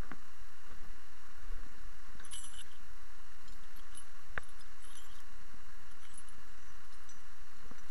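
Scattered small metallic clinks and clicks of chain and harness fittings, with one sharp click about four and a half seconds in, over a steady low rumble of wind on the microphone.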